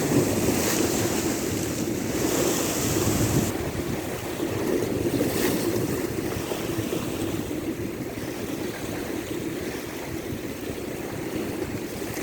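Sea waves washing in, with several hissing surges in the first six seconds, then a steadier wash, over low wind rumble on the microphone.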